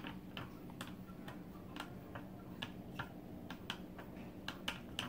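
Light clicks and crackles of a thin plastic cup, about two a second and unevenly spaced, as a hand grips it and turns it around on a wooden table.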